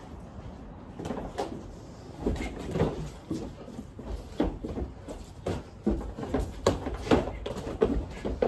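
Boxing gloves landing in light sparring: a quick, irregular string of thuds and slaps, several to the second at times.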